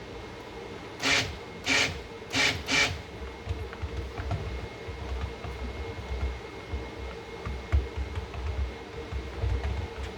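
Soap batter being mixed in its container: four short swishing noises in quick succession, over a steady low hum.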